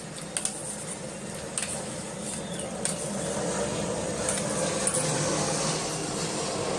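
Metal spoon stirring coconut milk in a stainless steel bowl, with scattered light clinks and scrapes against the steel. A steady low hum runs underneath.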